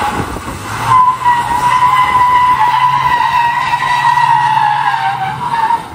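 Pickup truck's tyres squealing on the wet concrete boat ramp as it hauls the loaded boat trailer out of the water. The tyres are slipping under the load. The squeal settles into one steady high note about a second in, sags slightly in pitch and stops near the end.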